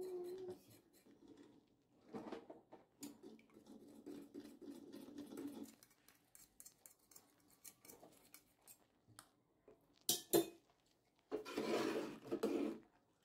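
Faint clinking and scraping of a spoon against the cooking pot as lumps of rice paste are mashed and stirred into the thickening milk for kheer, with two sharper knocks about ten seconds in and a louder stretch of scraping near the end.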